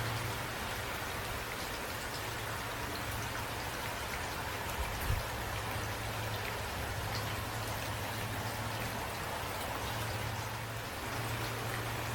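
Steady rainfall with individual drops ticking on a surface, over a low rumble, and one soft thump about five seconds in.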